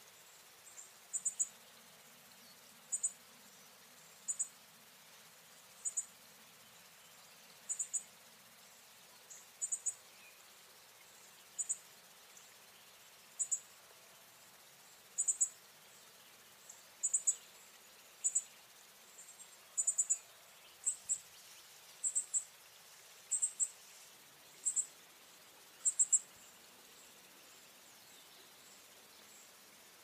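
Northern cardinal fledgling giving short, very high chip calls, singly or in quick pairs, about every one and a half to two seconds, stopping a few seconds before the end.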